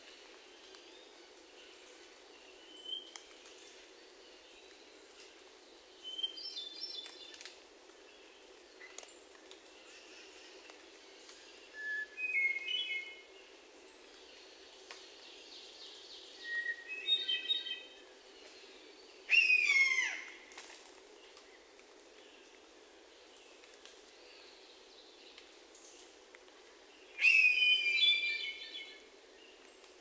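Hermit thrush singing several fluty phrases a few seconds apart, each opening with a single held whistle and breaking into a quick flourish of higher notes. Twice, about twenty seconds in and near the end, a louder harsh scream slurs downward: a blue jay imitating the call of a red-shouldered hawk.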